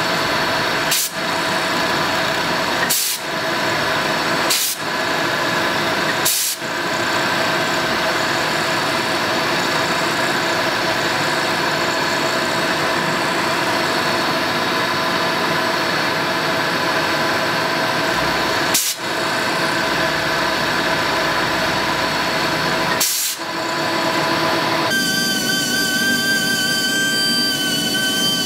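Milling machine running, its end mill cutting a slot into a steel block: a steady mechanical running sound with a few brief dips. About 25 s in it gives way to the steady high whine of a hand-held die grinder with a small abrasive disc, working in the slot.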